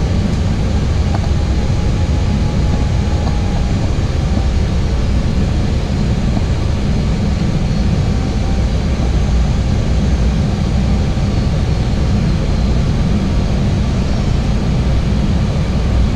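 Steady cockpit noise of an Airbus A320neo on final approach: a loud, even low rumble of airflow and aircraft systems with hiss above it.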